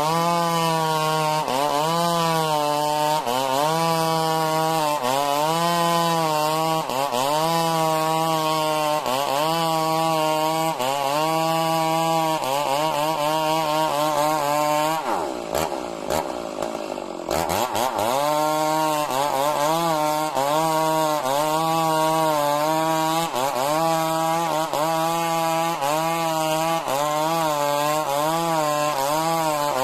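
Stihl MS 382 two-stroke chainsaw cutting lengthwise through majau timber, its engine pitch rising and falling about once a second as the chain loads up in the cut. About halfway through, the engine drops off for about two seconds, then revs back up and carries on cutting.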